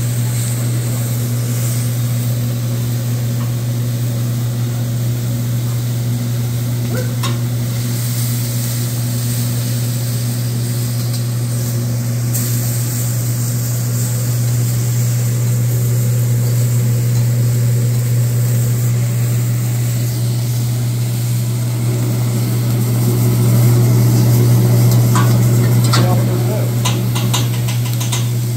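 Food sizzling on a flat-top teppanyaki griddle as a hibachi chef stirs and turns it with metal spatulas. It swells louder for a few seconds past the middle, and near the end a few sharp metal clicks come from the spatulas on the steel. A steady low hum runs underneath.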